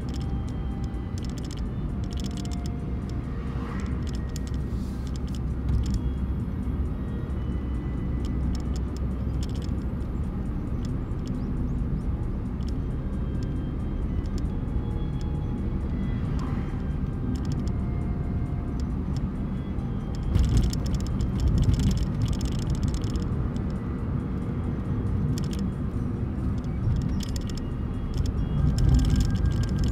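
A car's road and engine noise heard from inside the cabin while driving steadily, with music playing faintly over it. The noise swells a little about two-thirds of the way in and again near the end.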